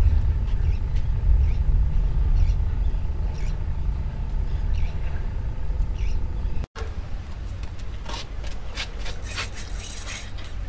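Wind buffeting the microphone, a steady low rumble. It drops off after a sudden break about two-thirds in, and a quick run of sharp clicks and rattles follows near the end.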